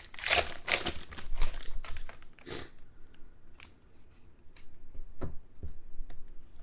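Foil wrapper of a trading-card pack being torn open and crinkled for the first couple of seconds, then quieter short clicks and taps as the cards are handled and stacked.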